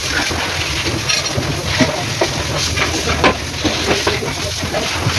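Mitsubishi 4M40 four-cylinder diesel engine running steadily, with a constant low drone and scattered short knocks and ticks over it.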